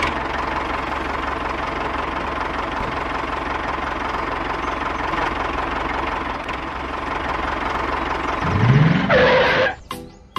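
Small motor of a DIY model machine running steadily. Near the end there is a short rising whine, then the sound cuts off.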